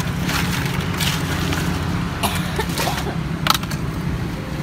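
A hand rummaging in a plastic cooler box of ice, making a few short knocks and rattles; the sharpest comes about three and a half seconds in. A steady low traffic hum runs underneath.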